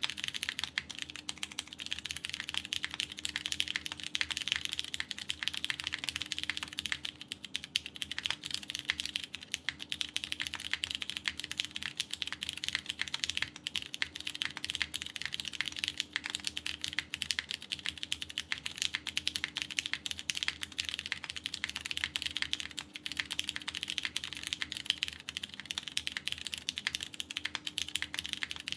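Steady fast typing on a KBDfans Tofu TKL mechanical keyboard, PCB-gasket-mounted, with lubed Cherry MX Purple tactile switches, a polycarbonate plate and GMK keycaps: a dense, continuous patter of key clacks.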